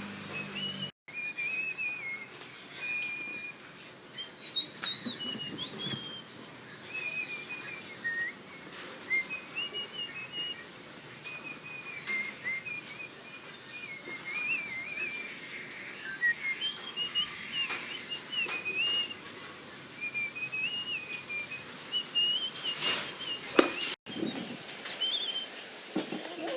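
A long run of high, warbling whistled notes that step up and down in pitch, broken by a few sharp clicks, the loudest near the end.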